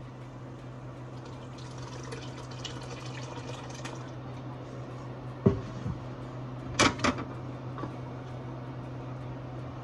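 Chicken broth poured into a pot of stew sauce, a faint splashing rush, then sharp clanks of cookware about five and a half seconds in and a double clank about a second later, over a steady low hum.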